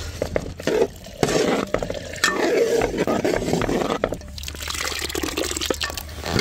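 Thick chicken masala gravy in a large cooking pot, making wet, bubbling, sloshing sounds with scattered clicks.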